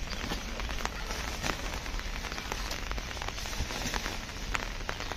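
Rain falling: a steady hiss with scattered sharp ticks of drops striking hard surfaces, over a low rumble.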